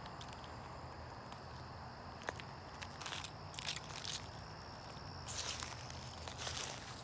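Footsteps crunching over the ground, a few short steps about halfway through and more near the end, over a steady low hum and a faint high-pitched whine.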